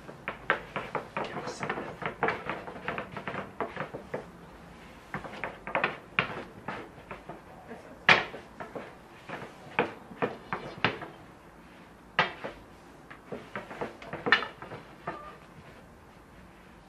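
Long, thin wooden rolling pins rolling out baklava dough on a wooden board: irregular clacks and knocks of wood on wood, the loudest about eight seconds in.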